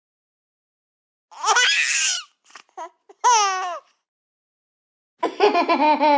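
Baby-laugh sound effects played back one after another, with silence between clips. There is a burst of giggling about a second in, a high squealing laugh that falls in pitch after about three seconds, and another laughing clip from about five seconds in.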